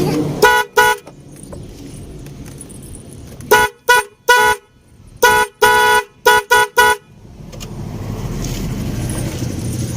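Car double horns, wired through a 4-pin horn relay, tooting in short beeps: two quick toots near the start, then eight more in a quick cluster a few seconds later, two of them held a little longer. The horns are sounding through the newly connected relay, showing the wiring works.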